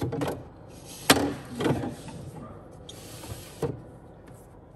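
Wine-fridge rack shelves sliding on their rails and a glass champagne bottle being set into a rack: a handful of knocks and clunks, the loudest about a second in.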